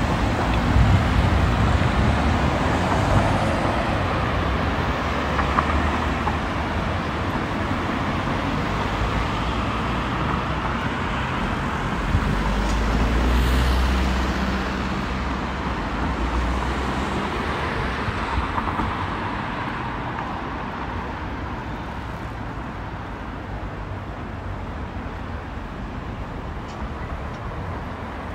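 City road traffic: a steady hum of passing cars, with a louder low rumble as a heavy vehicle goes by about halfway through, then fading slowly.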